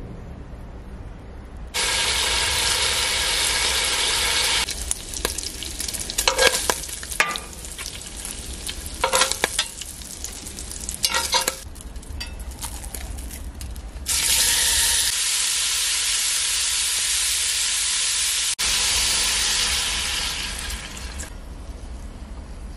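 Bacon sizzling in hot oil in a cast-iron Dutch oven, then a stretch of stirring and scraping in the pot, then loud steady sizzling again from about halfway through as ground meat goes into the hot fat, fading near the end.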